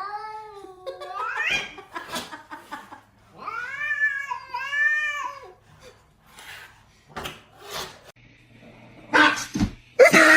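A cat yowling in long, drawn-out meows: one wavering call that rises at its end, then two long arching meows in a row a few seconds later. Near the end there is a short, loud, noisy burst.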